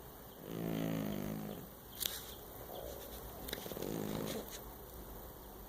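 A cat snoring: two snores, each about a second long and roughly three seconds apart, with a faint click between them.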